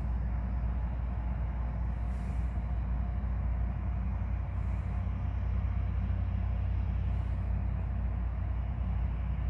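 EMD SD70 and SD70M-2 diesel locomotives running in the distance, a steady low rumble with a faint steady hum above it.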